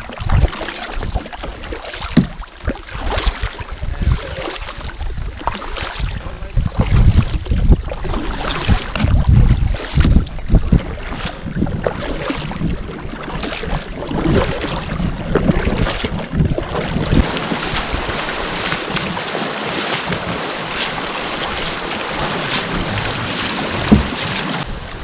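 Wind buffeting the microphone, with water noise and irregular knocks and rumbles. About seventeen seconds in it gives way to a steadier hiss.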